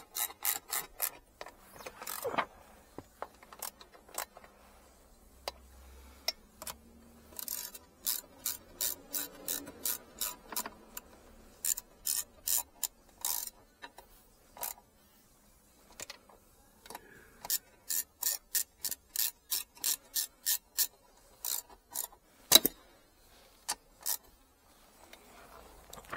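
Hand socket ratchet clicking as it turns the mounting bolts of a BMW E90's airbag control module. The clicks come in several runs of three or four a second, with pauses and a few single knocks between.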